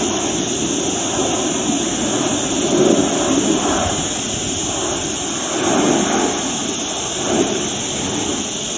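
Jet noise from a Beriev Be-200 amphibious firefighting plane's two turbofan engines as it flies past low: a steady rushing sound that swells and eases several times.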